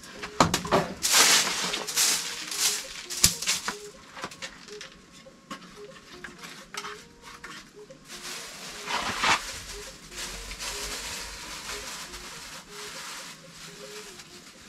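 Short grass hand broom sweeping a dirt floor in quick scraping strokes, loudest in the first few seconds. About nine seconds in there is another rush of scraping with a sharp knock as objects are moved about.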